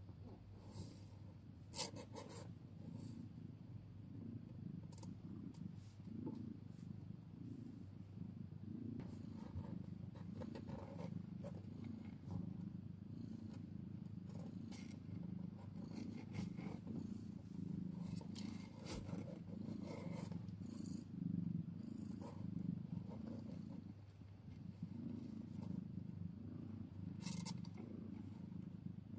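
Mother cat purring steadily in the first minutes after giving birth, a low, even purr with a few faint clicks, one about two seconds in and one near the end.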